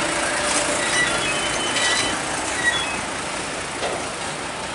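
A train passing: a steady rushing rumble of wheels on rail, with a few short, high wheel squeals in the first half and occasional clacks.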